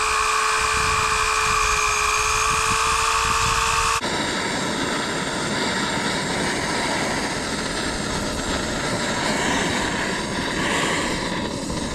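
Soldering torch burning with a steady roaring hiss, heating the radiator's cracked lower hose outlet tube. For the first few seconds a steady whistle rides over the hiss; then, after a sudden change, a plainer hiss runs on.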